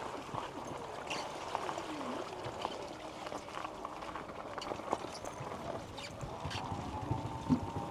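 Floodwater running and trickling, with a few light clicks.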